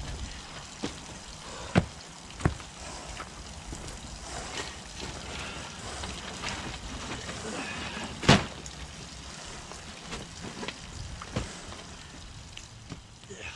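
Rustling and scraping of a person climbing out of a rocky cave entrance and setting down large woven plastic bags, with several sharp knocks, the loudest about eight seconds in, over a steady trickle of water.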